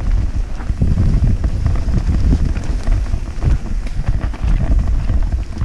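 Wind buffeting a helmet-mounted action camera's microphone during a fast mountain bike descent, with a low rumble and an irregular rattle from the bike running over rough, leaf-covered dirt trail.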